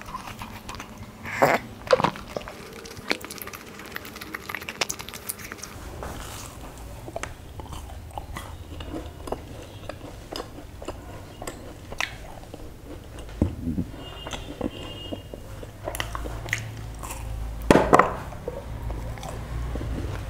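Close-miked chewing and crunching of imarti, the crisp, syrup-soaked fried sweet, with loud crunches about two seconds in and again near the end.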